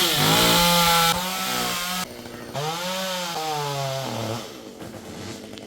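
Chainsaw running at high revs for about two seconds, dropping off, then revving again, its pitch sinking before it falls away.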